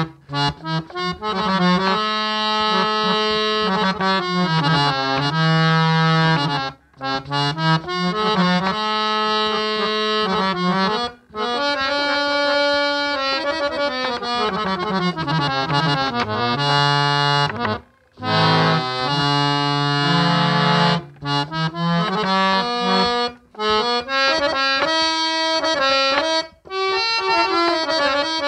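A Calcutta-made harmonium with old Palitana bass-male reeds by Jivan Lal Kanji & Sons, played as a melody of held notes over a low drone, its phrases broken by short pauses about every few seconds.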